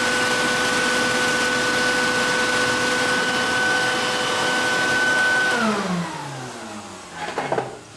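Electric belt sharpening machine running steadily with a constant whine, then switched off about five and a half seconds in, its pitch falling as the motor and belt wind down. A short clatter follows near the end.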